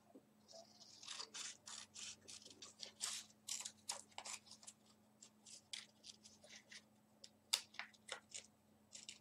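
Scissors cutting thin paper: a long run of short, quick snips at an uneven pace, a few louder than the rest.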